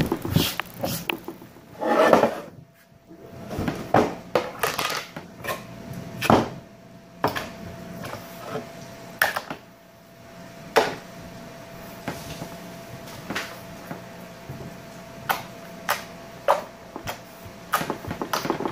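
Slime being squeezed, stretched and poked on a tabletop: irregular sharp clicks and pops with a few louder soft thumps, over a faint steady hum.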